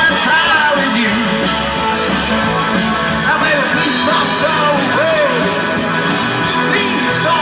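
Live band playing a rock song, a singer over electric guitars, bass and drums.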